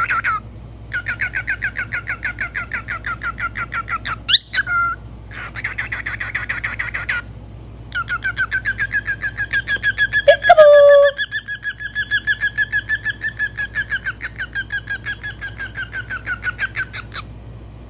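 White-faced cockatiel chirping in long runs of quick, repeated pitched notes, with a short upward-sliding call about four seconds in and a louder, lower call about ten seconds in.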